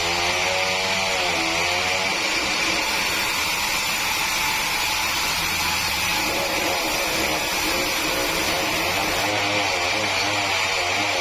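Sawmill saw running through a large meranti log: a steady machine noise with a strong high whine, its lower pitch wavering at the start and again near the end.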